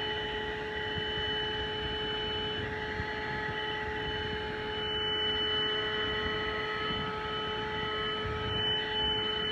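THISWORX 12 V handheld car vacuum's 106 W motor running steadily: a constant whine at several pitches over a rush of air.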